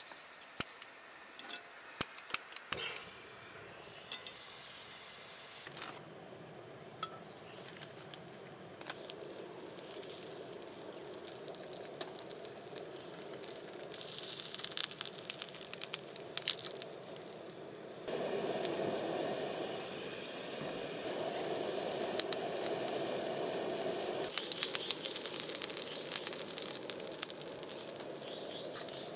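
Steady hissing with many small crackles and clicks, louder and fuller from about eighteen seconds in.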